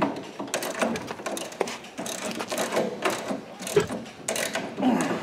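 Socket ratchet wrench clicking in quick strokes as it is worked back and forth on a bolt at the go-kart's motor bracket, letting the motor down to slacken the drive chain.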